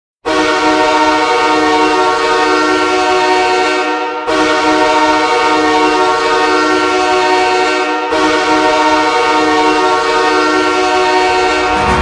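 Los Angeles Kings goal horn sounding three long blasts of about four seconds each, a loud, steady, many-toned chord like a train horn.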